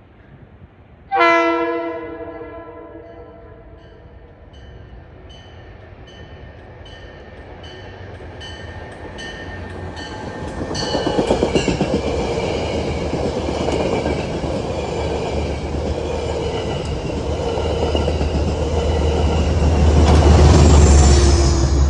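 A passenger train sounds a long horn chord about a second in, then approaches and passes. The rumble and clatter of wheels on rail build to their loudest near the end.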